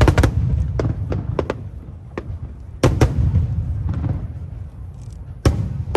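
Aerial fireworks shells bursting: three big booms about two and a half to three seconds apart. Each is followed by a string of sharp cracks and a low rumble that fades away.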